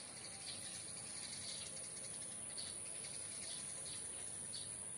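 Small birds chirping in short, high, repeated notes, one every half second to a second, over a steady high-pitched insect whine.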